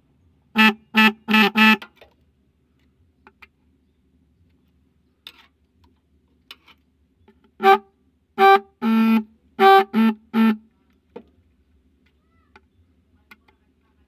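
Snail-type electric car horn sounding in short test beeps as a wire is touched to its terminal: four quick beeps near the start, then after a pause six more, one a little longer. It is a horn that had gone dead, working again after being serviced with a gasket added inside.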